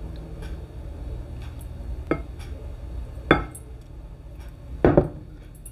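Glassware knocking three times: a glass jug clinking against the glass baking dish, with a low steady hum underneath.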